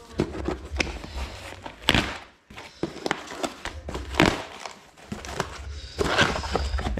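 Small packaging being unwrapped by hand: a plastic bag and a cardboard box crinkling and rustling, with scattered sharp clicks and knocks.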